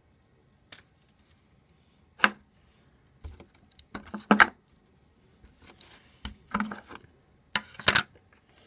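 Clear plastic slime containers being handled and set down: a series of irregular plastic knocks and clicks, the sharpest about two seconds in and about four seconds in, with a few more near the end.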